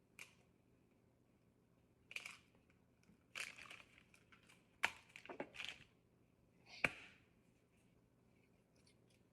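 Scattered kitchen handling noises while baking: a few short rustling and crinkling sounds and two sharp clicks, about five seconds in and again two seconds later.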